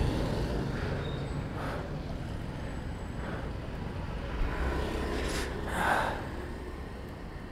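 Steady low rumble of motor-vehicle engines, with a brief louder swell of noise about six seconds in.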